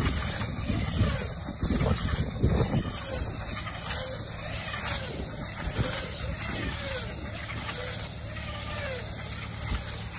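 Tractor engine running as it drives across a hay field with a front-mounted bale wrapper, over a steady high hiss, with heavier rumble in the first few seconds.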